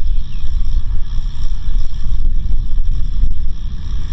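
Kubota M6040SU tractor's diesel engine running steadily under load while plowing: a dense, continuous low rumble.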